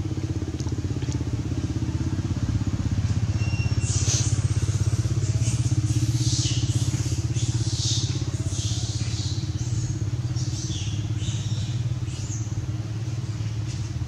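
A motor engine running steadily with a low, fast-pulsing hum that swells slightly in the middle. Short high-pitched rasping bursts come and go over it from about four seconds in.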